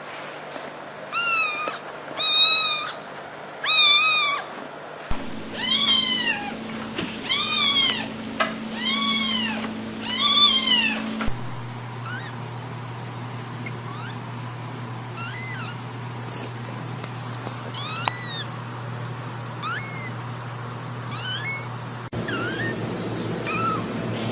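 Kittens meowing over and over, in several recordings joined one after another. The first part has loud meows that rise and fall in pitch, about four and then five in a row. After that come fainter, short, high mews.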